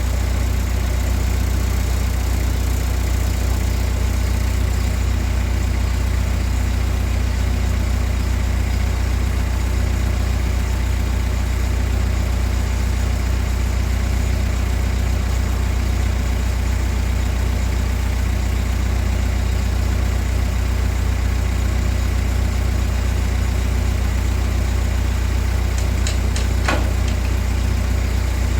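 An engine idling steadily, with a faint regular pulse low down. Near the end there is a short squeal falling in pitch.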